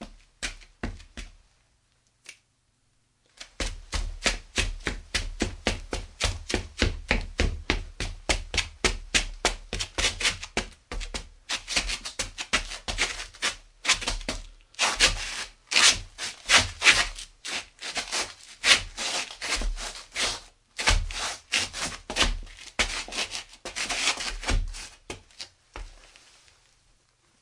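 Footsteps, as a sound effect: a few steps that stop about a second in, then after a short gap a long run of quick, closely spaced steps that fades out near the end.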